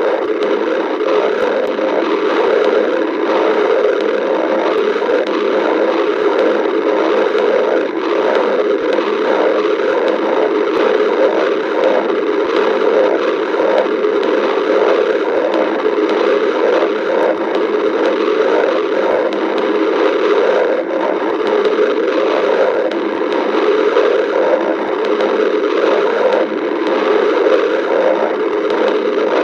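A person's stomach growling: gurgling and rumbling that goes on without a break.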